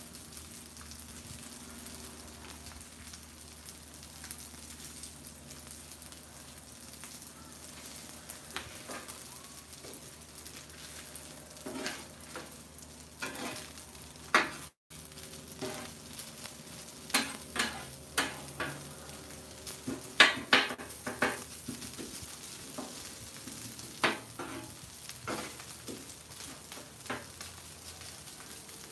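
Rice and eggs sizzling on a Blackstone flat top griddle. Steel spatulas scrape and clack sharply against the griddle plate as the rice is chopped and pushed around, the clacks coming in clusters through the second half.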